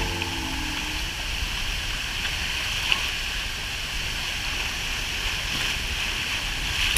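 Steady rushing noise of a waterfall crashing into its plunge pool, with splashing from swimmers in the churned-up water close by.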